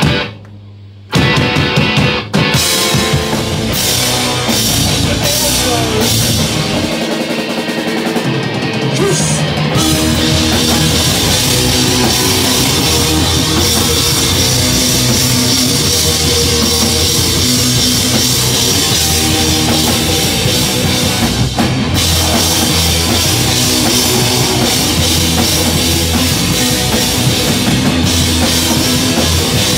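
Live rock band playing loud, with drum kit and electric guitar. The sound drops out briefly about a second in, then comes back in full.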